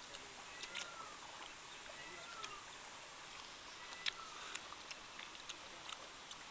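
Faint birdsong: about four short chirps, each falling in pitch, spread over a few seconds, with scattered soft clicks.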